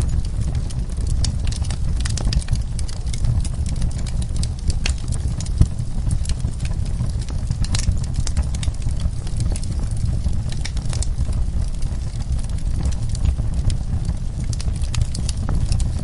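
Wood fire burning in a fireplace: a steady low rumble of flames with frequent, irregular crackles and pops from the burning logs. One sharper pop comes about five and a half seconds in.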